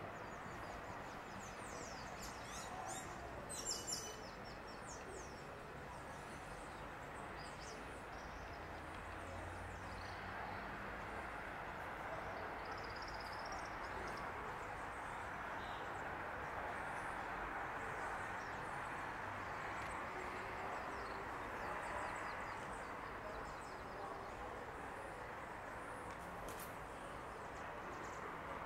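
Steady outdoor background noise with small birds chirping now and then, and a brief flurry of sharper bird calls about three to four seconds in.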